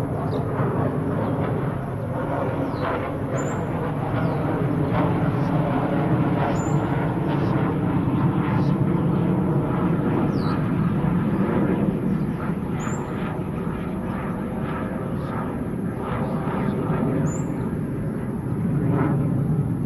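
Jet engine roar of a Republic of Singapore Air Force fighter flying overhead out of sight, a steady deep rumble that swells around the middle and again near the end.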